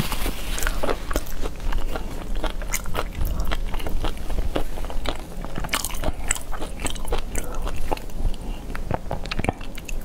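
Close-miked chewing and crunching of food in the mouth: an irregular run of sharp clicks, snaps and wet smacks.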